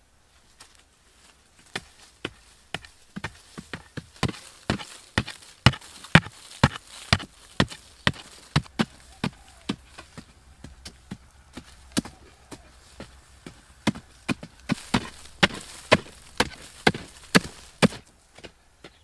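Two long-handled hand hoes striking and chopping into hard, dry soil, with sharp, irregular, overlapping blows a few times a second. The blows thin out near the end.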